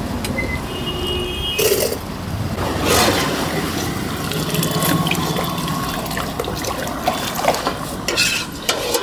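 Bara (lentil fritters) sizzling in hot frying oil: a steady hiss, with a few clinks of a metal ladle against the pots.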